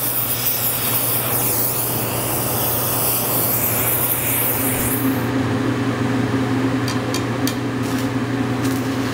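Oxy-fuel torch flame hissing steadily as it preheats a steel plate, stopping about five seconds in. A couple of seconds later, the irregular crackle of a stick-welding arc starts as a hardfacing rod is struck on the plate. A steady low hum runs underneath.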